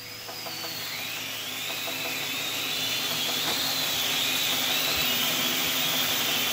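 Syma X5C-1 toy quadcopter's small motors and propellers spinning up while it floats on water, a high whine that climbs over the first two seconds and then wavers, over a rushing hiss that grows steadily louder.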